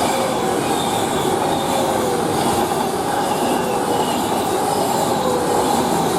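Class 390 Pendolino electric train passing through the station, a steady loud rush of wheels on rail with thin whining tones drifting slowly in pitch.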